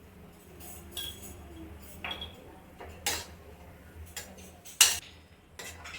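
Spoon clinking and scraping against a cooking pan while stirring grated beetroot with sugar and cardamom, a sharp clink about once a second, the loudest near the end.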